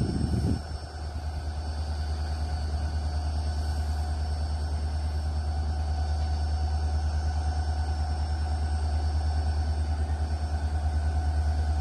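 RORO freight train's locomotive approaching in the distance: a steady low rumble with an even pulse and a steady engine hum above it, slowly growing louder. A short burst of low noise comes at the very start.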